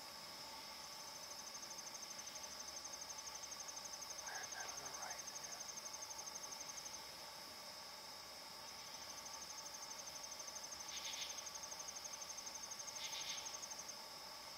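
Night insect chorus: a steady high drone with a rapid, pulsing trill over it that stops about halfway through and then starts again. Two brief scratchy calls about two seconds apart near the end.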